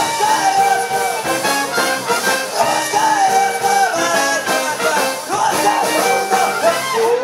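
Live brass band music: a violin plays over brass, tuba and a steady bass drum beat, with a rising slide in the melody near the end.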